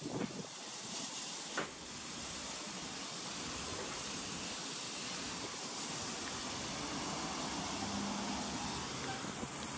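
Steady hiss of steam escaping from a standing steam locomotive, with a couple of short knocks in the first two seconds.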